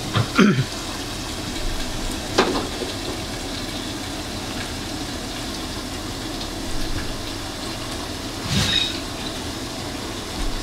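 Pork curry sizzling in a pot with a steady hiss, with a few knocks of a utensil against the pot: near the start, about two seconds in, and a ringing clink near the end.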